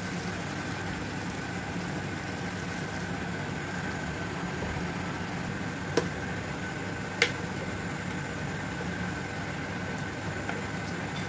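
Boiling water poured into a metal pot of sautéed rice and chicken, then stirred with a wooden spoon, over a steady kitchen hum. Two sharp knocks of the spoon against the pot about six and seven seconds in.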